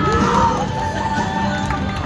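Music playing over an arena's sound system, with crowd noise underneath.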